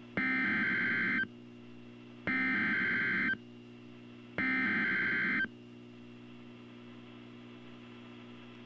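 NOAA Weather Radio's SAME digital data tones: three identical harsh, buzzing bursts of about a second each, a second apart. They are the end-of-message code that closes the severe thunderstorm warning. A faint steady hum sits between the bursts and carries on after the third.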